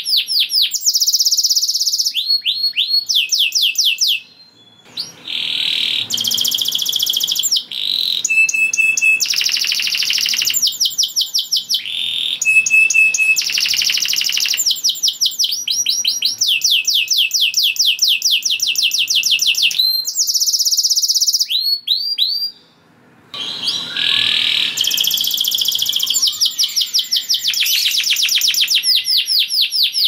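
Domestic canary singing a long, vigorous song of rapid trills and rolls: phrases of fast repeated high notes that change every second or two, with a few held whistled notes, broken by two short pauses.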